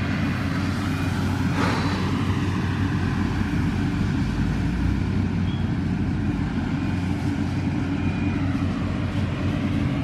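Yanmar 850 combine harvester's diesel engine running steadily as a constant low drone while it harvests rice. A brief noise is heard about two seconds in.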